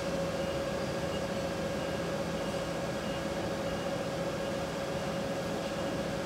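A steady mechanical hum: a constant mid-pitched tone over a low drone and a noisy hiss, unchanging.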